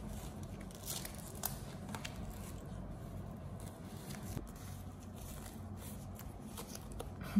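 Disposable diaper crinkling and rustling in short, irregular crackles as it is handled and its tabs are fastened.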